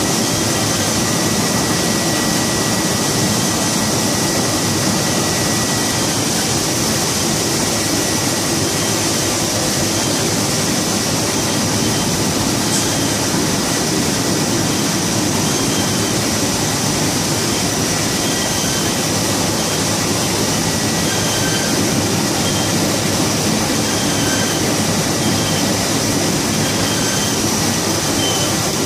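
Codimag Viva 340 label printing press running steadily: a continuous mechanical din with a steady high whine. From about halfway through, a short high chirp repeats every second or so.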